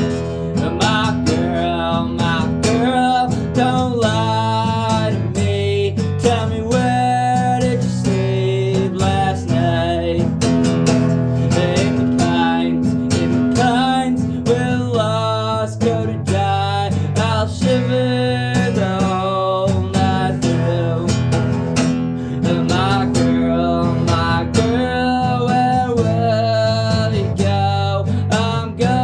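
Acoustic guitar strummed steadily, with a wavering vocal melody carried over it.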